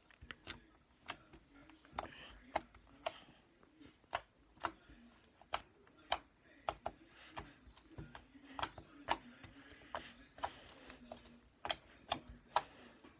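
Purple slime being poked with three fingertips, giving a string of small sharp clicks and pops, about one or two a second in an uneven rhythm.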